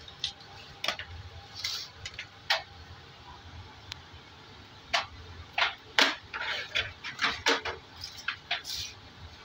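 Hard plastic panels of a folding laundry basket clacking and knocking as they are handled and set down on a table. The clacks come singly at first, then in a quick cluster in the second half.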